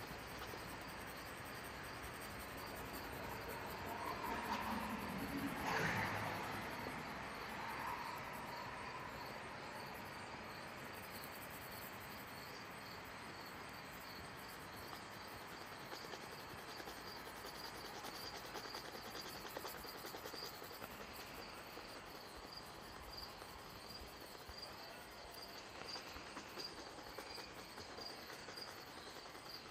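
Crickets chirping in a steady, even pulse. A louder, muffled sound swells and fades between about four and eight seconds in.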